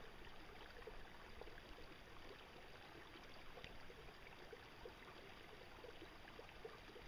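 Near silence: faint, steady outdoor ambience of hiss with a low rumble and a few tiny soft ticks.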